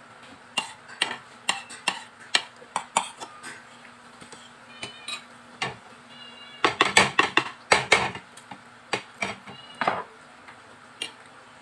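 Metal fork and spoon clinking and scraping against a ceramic bowl while eating, a string of sharp taps, some ringing briefly, with a louder, busier flurry of clatter about seven seconds in.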